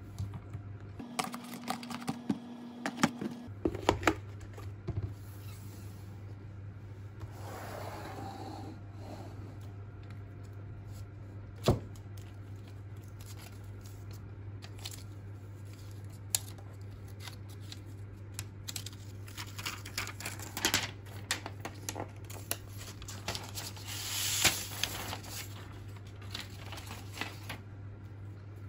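Hands handling an iPad's paperboard box and paper wrap: a scatter of sharp clicks and taps, a single sharp click, and stretches of paper rustling and tearing as the wrap comes off the tablet. A steady low hum runs underneath.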